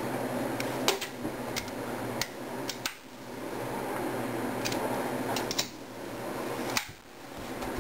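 Scattered light clicks and taps of small metal rifle parts and tools being handled during assembly, over a steady background hum.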